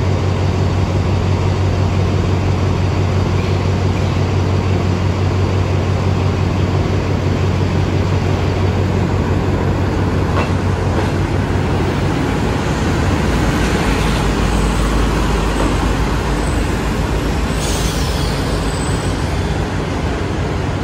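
Diesel railcar set running slowly past along the platform: a steady engine drone that gives way to a deeper rumble of the cars and wheels as the train goes by. A brief high-pitched squeal comes near the end.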